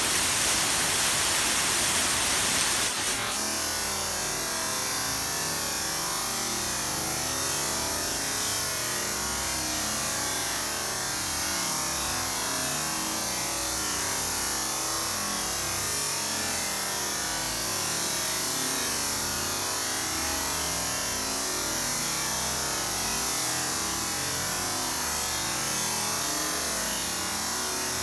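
Steady rain falling, an even hiss strongest in the high end, a little louder for the first three seconds and then level.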